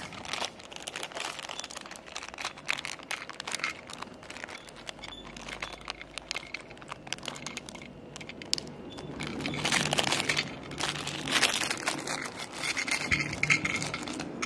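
A small clear plastic bag crinkles and crackles irregularly as it is handled and opened. The crinkling gets louder and busier about two-thirds of the way through.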